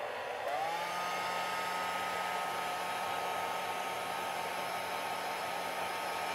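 Handheld hair dryer running, blowing air. About half a second in, its motor whine rises in pitch as it speeds up, then holds steady.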